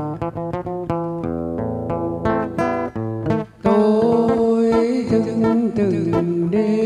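An acoustic guitar plays a melodic run of single plucked notes. About halfway through, a man's singing voice comes in over the guitar, through a microphone.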